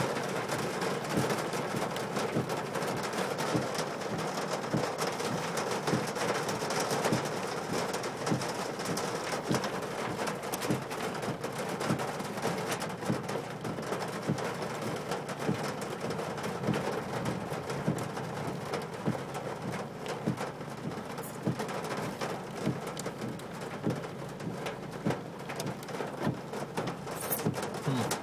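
Rain falling and pattering on a car, with many separate drops ticking over a steady hiss.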